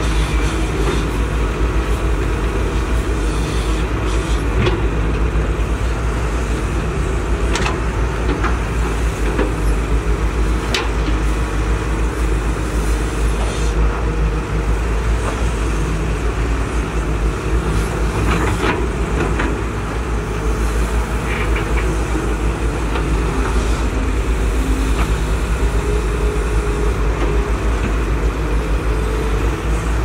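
Hydraulic excavators' diesel engines running steadily under load, with a few sharp metallic clanks scattered through.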